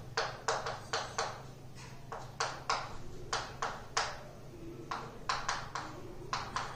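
Chalk tapping and scraping on a chalkboard as numbers and symbols are written: a string of short, sharp taps, about three a second, with a brief pause about four seconds in.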